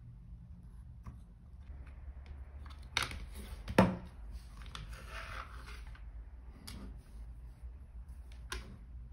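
Handling sounds of a plastic eyeglass frame during hinge repair: a few sharp clicks, the loudest about four seconds in, then a short rustle of fingers and frame on the work surface, over a low steady hum.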